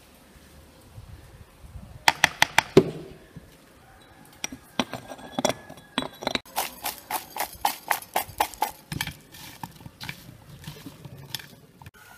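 A small spoon clinking against a glass spice jar as ground spice is scooped out and tapped off. There is a quick run of sharp clinks about two seconds in, then a longer run of taps about three or four a second, thinning to a few scattered clinks near the end.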